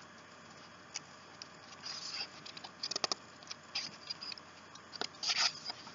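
Faint rustles and scattered small clicks of a paper picture book being handled as its page is turned.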